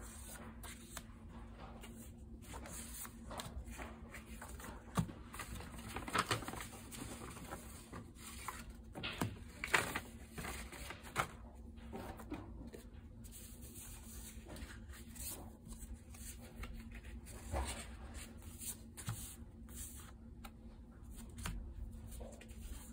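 Loose paper notecards being leafed through and shifted by hand: scattered soft rustles and light taps, with a few louder handling noises partway through.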